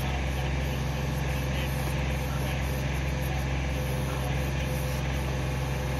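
John Deere compact tractor engine running steadily while its 270B backhoe digs soil.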